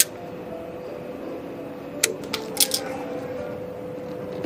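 Four or five sharp clicks in quick succession about two seconds in, from air tubing being worked with a cutter and onto push-in pneumatic fittings, over steady background music.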